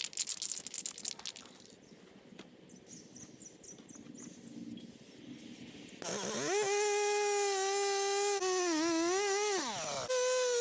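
Chainsaw revving up to a high steady whine about six seconds in, its pitch wavering and dipping for a moment as it cuts into wood, then dropping; near the end it is running again at a slightly higher steady pitch. Light clicks and handling noise come before it starts.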